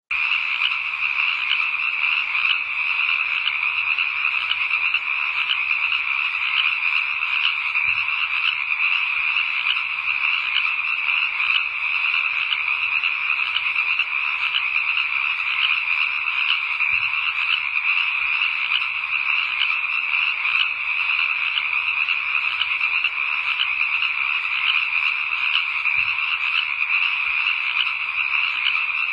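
Dense night chorus of frogs calling, many overlapping trills merging into a steady, unbroken din.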